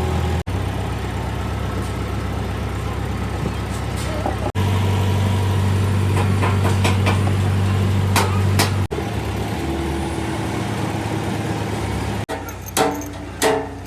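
A machine running with a steady low hum, heard in several short clips cut together, with a few sharp knocks about halfway through. Plucked music with a beat comes in near the end.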